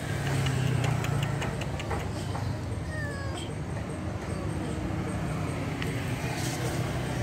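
A stray kitten meowing in short falling calls, over a low steady hum.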